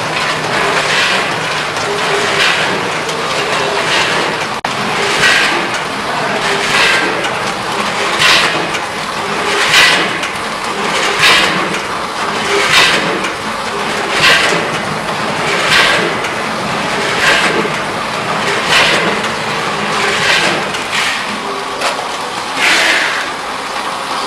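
Snack food packing machine with a multihead weigher running steadily, with a rushing burst about every second and a half, one per bag cycle at about 40 bags a minute.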